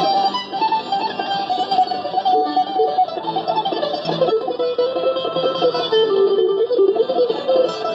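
Acoustic mandolin playing an instrumental melody break in a folk song, its held melody notes filled with rapid picking, over a plucked-string band accompaniment.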